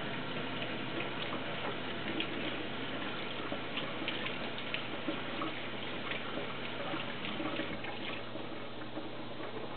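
Kitchen faucet running into a sink while a canister filter's foam pad is rinsed and squeezed under the stream, with irregular splashes and drips.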